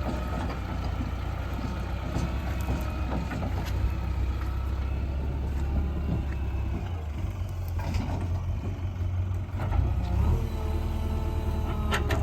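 JCB 3DX backhoe loader's diesel engine running steadily under working load, with a few sharp knocks about eight seconds in and near the end.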